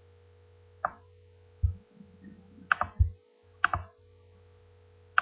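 Computer mouse clicking about five times, sharp single clicks with two in quick succession near the middle, over a steady electrical hum. Two dull low thumps fall among the clicks.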